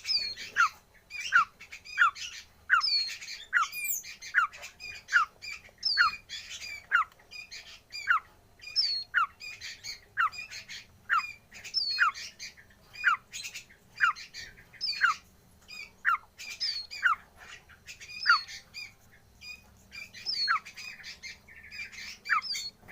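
A bird chick, which the owner takes for a nightjar (cabak) chick, peeping over and over: short falling whistled calls at about two a second, keeping up a steady rhythm.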